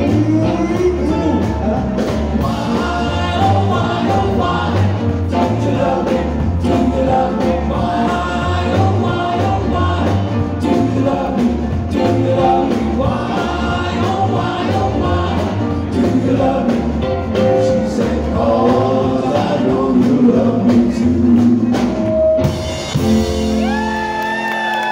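Live band music: several male voices singing in close harmony over a steady bass line and drums. The song ends about 23 seconds in with a final held note, and whoops and cheering from the crowd begin.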